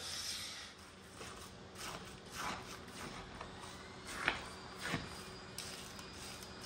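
Faint kitchen handling noises: soft rustling and scraping, with two light knocks about four and five seconds in.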